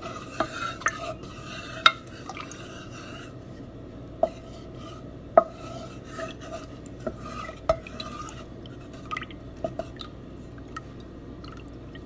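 Utensil stirring a mixture of oats and chopped vegetables in a glass bowl, scraping with sharp clinks against the glass every second or two, the loudest about two seconds in and again about five seconds in.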